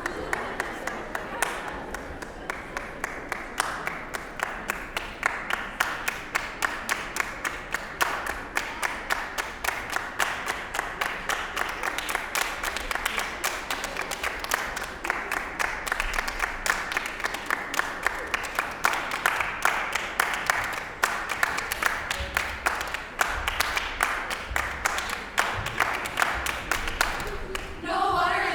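Audience applauding, a dense steady clapping throughout; choir voices begin to sound right at the very end.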